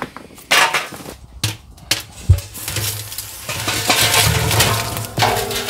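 Lit charcoal briquettes tipped from a metal chimney starter into a steel barrel cooker: the chimney clanks against the drum and the coals clatter and crackle. There are several sharp knocks in the first couple of seconds, the loudest a little over two seconds in, then a denser clatter.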